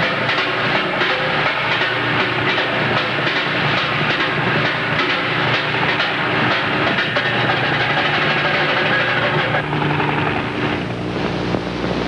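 Helicopter running, its rotor giving a rapid, even chopping over a steady noisy hiss; the sound thins out about ten seconds in.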